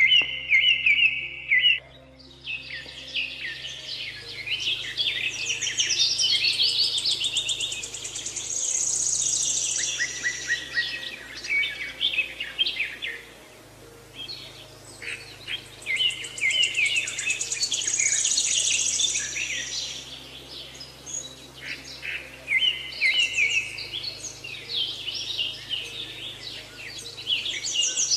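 Several songbirds chirping and trilling, with overlapping songs throughout, over a soft, low sustained music drone whose chord shifts every few seconds.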